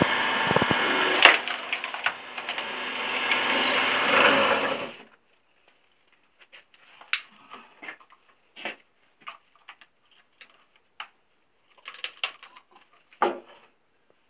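Electric-motor screw-cone log splitter boring its threaded cone into a log: wood cracking and splintering over the motor's steady hum, with a sharp crack about a second in. About five seconds in it stops, leaving scattered knocks and thuds of split wood being handled, the loudest one near the end.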